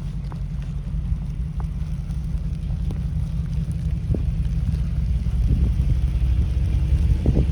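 Blizzard wind buffeting the microphone: a loud, uneven low rumble that swells a little in the second half, with scattered faint clicks.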